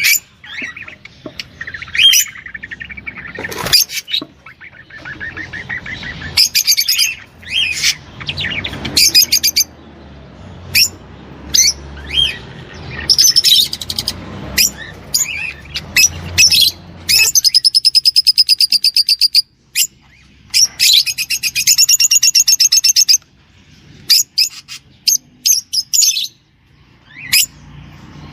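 A songbird singing: a string of short chirps and whistled notes, then two long, very rapid trills of a couple of seconds each in the second half.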